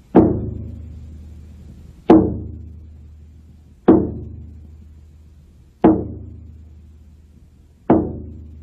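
Slow, steady drumbeat on the film's soundtrack: a single drum struck five times, about once every two seconds, each beat ringing and fading away before the next.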